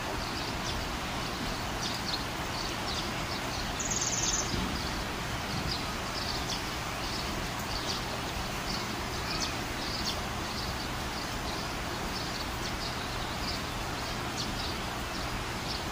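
Light rain falling, a steady even hiss, with short high chirps scattered through.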